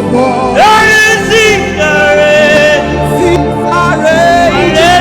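Gospel worship music: sustained singing over a steady instrumental backing.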